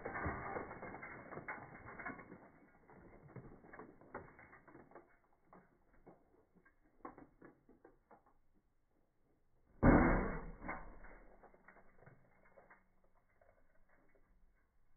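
Fluorescent tubes being broken with a hammer in a trash can: glass crunching and shards clinking, thinning out over several seconds. About ten seconds in a loud crash as another tube shatters, followed by fading crackle of settling glass.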